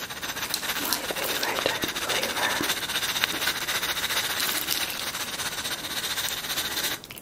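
Crispy chili chips poured from a wooden bowl onto a salad: a dense, steady patter of many small crisp ticks that stops near the end.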